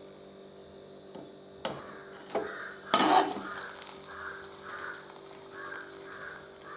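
A potato-and-egg omelette frying on low flame, with a few sharp knocks of a utensil against the pan a couple of seconds in.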